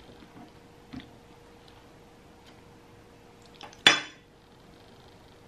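Metal fork clinking against a dish while eating a smoothie bowl: a faint tap about a second in, then one loud, sharp clink with a short ring just before the fork goes to the mouth.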